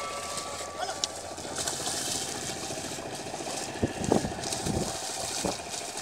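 A pair of bullocks and a plough splashing through flooded paddy mud, with a few louder splashes around four and five seconds in, over a steady outdoor hiss. A held high tone stops about a second in.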